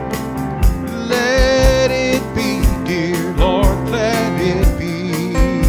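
Electronic keyboard playing a slow gospel tune over a steady drum beat, with a wavering melody line held with vibrato from about a second in.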